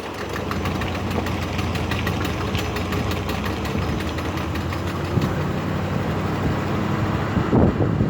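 Rapid clicking from the front drivetrain of a Jeep Grand Cherokee WJ while turning, over the steady hum of the engine. The clicking is strongest in the first half and fades after. The owner suspects a bad CV axle.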